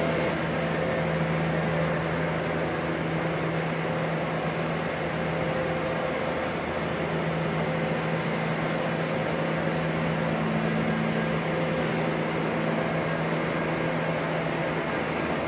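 Steady machine hum with a low droning tone over an even hiss, unchanging throughout.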